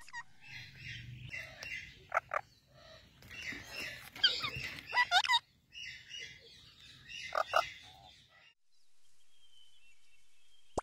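Parrot calling: a string of short harsh squawks and whistled notes, some gliding up and down in pitch, over about the first eight seconds, then only a faint steady hiss.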